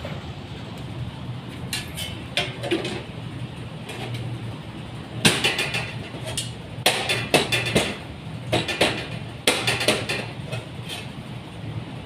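Steady low background hum with irregular knocks and clattering, in bunches that come thickest from about five to ten seconds in.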